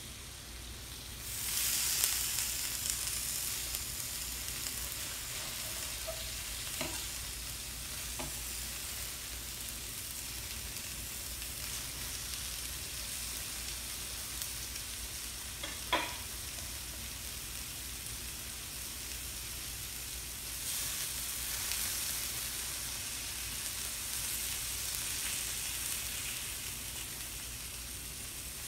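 Skirt steak sizzling on a stainless steel teppanyaki griddle. The sizzle swells near the start and again about two-thirds of the way through, with a few light clicks of the knife and spatula on the metal plate, the sharpest about sixteen seconds in.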